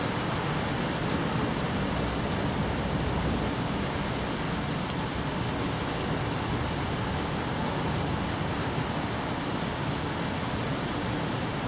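Steady rain falling on bamboo leaves and grass: an even hiss of raindrops with a few faint drip ticks.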